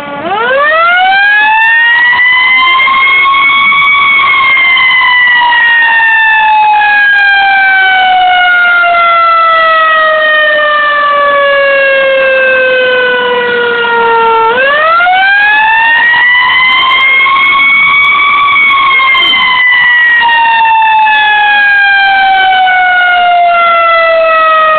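Fire brigade siren wailing loudly: it winds up quickly over about four seconds, then slowly falls in pitch for about ten seconds, and about two-thirds of the way through it winds up again and begins another slow fall.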